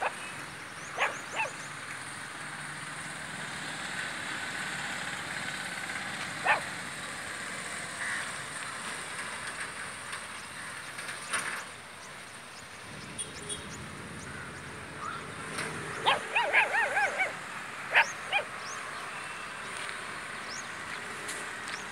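Puppies giving a few short barks, then a quick run of high, wavering yelps about three-quarters of the way through, over a steady hum of street traffic.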